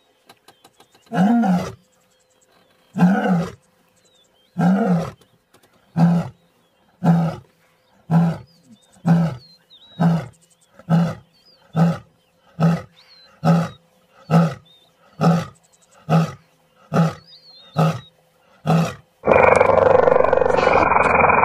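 Lioness roaring: a string of deep grunting calls, the first ones longer and nearly two seconds apart, then shorter and quicker until they come under a second apart, as a lion's roaring bout does when it winds down. About nineteen seconds in the grunts stop and a loud, continuous rough noise cuts in.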